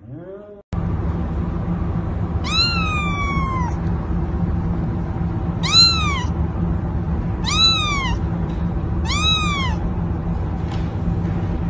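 A cat meowing four times, high calls that rise and then fall in pitch, the first one drawn out longer than the rest, over a steady low hum.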